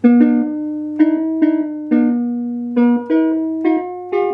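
Bontempi HP 544.20 electronic keyboard playing a simple melody on its guitar voice: about ten single notes, each with a sharp plucked attack that fades away.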